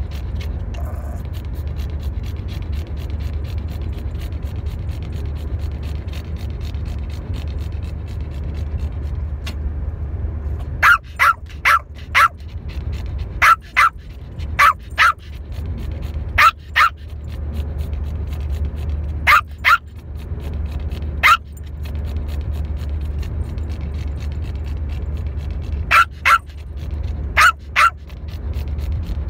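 A dog barking in short runs of two or three barks with pauses of a few seconds between them, over a steady low rumble. For about the first ten seconds only the rumble is heard.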